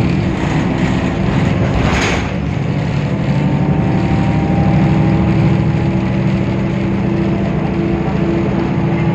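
Temsa Avenue LF city bus with its DAF PR 228 six-cylinder diesel running steadily. A short hiss comes about two seconds in.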